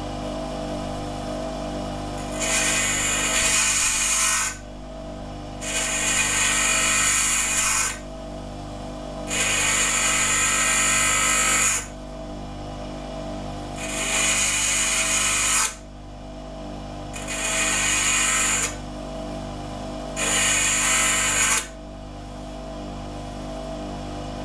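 Bench grinder motor running steadily while a steel nail is pressed against the grinding wheel in six separate passes, each a loud hissing grind of about two seconds, to shape it into a drifting tool.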